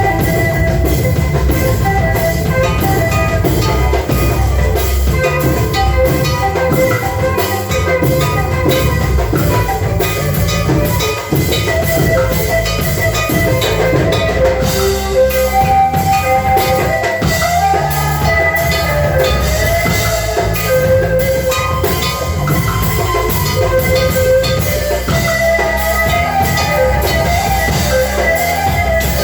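Instrumental music with a drum kit and guitar playing a steady, busy rhythm.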